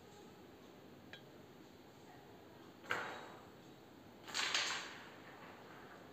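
Carrom striker shots on a carrom board: a faint tick about a second in, then a sharp flick-and-hit about three seconds in and another with several quick knocks a second and a half later, each trailing off briefly as striker and coins slide across the board.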